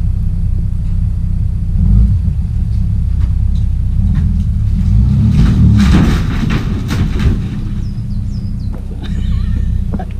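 Car engine running with a steady low rumble while pulling a structure down on a rope. About five seconds in, a louder, noisy burst of breaking and dragging debris lasts a couple of seconds. Birds chirp at the start and near the end.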